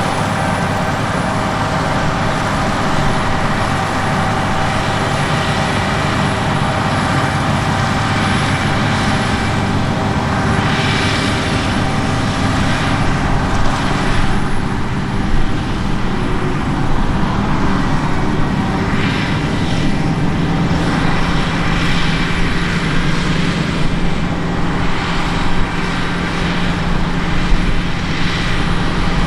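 Large diesel harvest machinery running steadily under load, with a rushing noise that swells and fades a few times over the engine hum.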